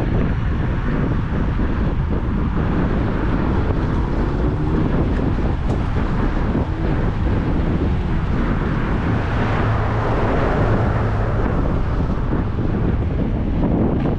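Wind buffeting a GoPro's built-in microphone while riding an Apollo Go electric scooter: a steady, loud rumbling rush.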